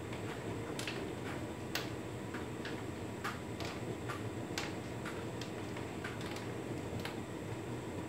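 Hotpoint Ultima S-Line tumble dryer running a cottons cycle, its drum turning the load with a steady hum. Light, irregular clicks come through the hum about once or twice a second.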